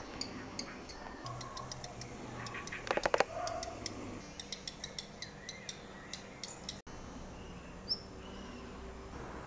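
Black redstart giving dry ticking calls, several short sharp ticks a second, with a few faint chirps mixed in. A brief rattle of rapid knocks about three seconds in is the loudest sound.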